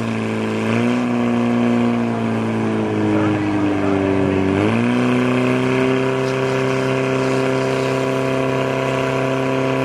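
Portable fire pump engine running hard, driving water through the hoses to two spraying nozzles. Its pitch sags near the start and slides down again over a couple of seconds, then jumps back up about four and a half seconds in and holds steady.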